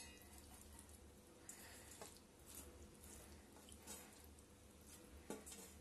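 Near silence, with a few faint soft taps and rustles as blanched spinach is handled and dropped into a steel mixer-grinder jar.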